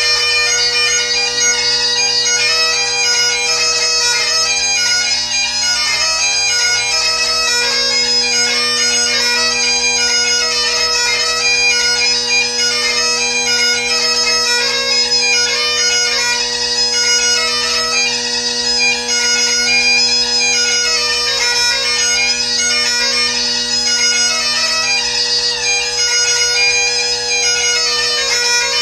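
Solo Great Highland bagpipe playing: the drones sound a steady low tone throughout while the chanter plays a continuous, fast-moving melody above them.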